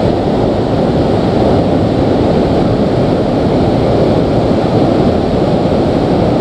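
Shallow river rapids: water rushing steadily over rocks and around boulders.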